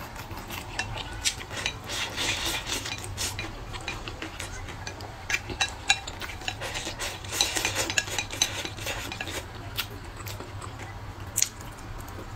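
Wooden chopsticks clicking and scraping against a ceramic bowl as the last bits of food are picked up, with irregular sharp taps and chewing between them.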